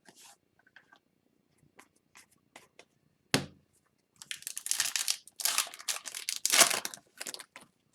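Foil wrapper of a 2021-22 Upper Deck Series 2 hockey card pack being torn open and crinkled, a dense crackling that lasts about three seconds in the second half. Before it come a few light clicks and one sharp knock about three and a half seconds in.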